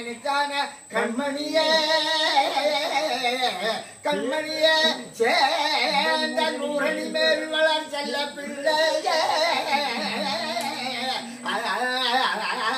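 An elderly man singing a virutham, a devotional verse in free rhythm, with long held notes that waver and slide, sung in phrases with short breaks between them.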